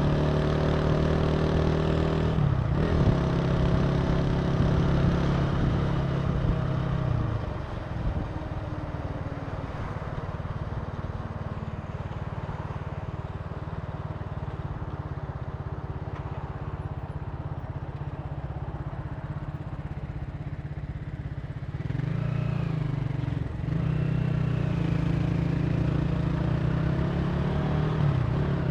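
Italika TC300 motorcycle engine running under way on the road. The engine is loud for the first seven seconds, drops to a softer note about seven to eight seconds in, and picks up again about twenty-two seconds in, with a brief dip a second or so later.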